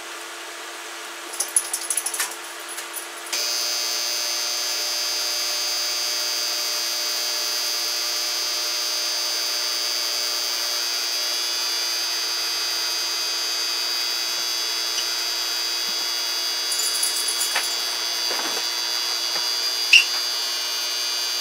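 Induction hot plate humming with a copper-clad pan on it; after a few clicks, about three seconds in, a loud steady high-pitched electrical buzz sets in and holds as the plate runs off a modified sine wave inverter. A few light knocks near the end.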